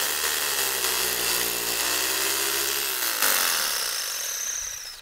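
Electric rotary hammer drill boring a hole into a masonry wall, running steadily. About three seconds in the bit comes free and the drill runs on unloaded, with a high whine that slowly falls until it stops near the end.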